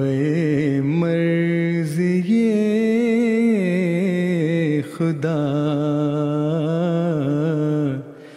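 A man singing an Urdu nazm, one voice drawing out long notes with a wavering pitch over several phrases, breaking off near the end.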